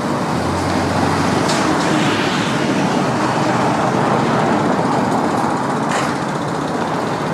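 Steady road traffic noise of cars and trucks going by, with a low engine hum from about half a second in to about two seconds.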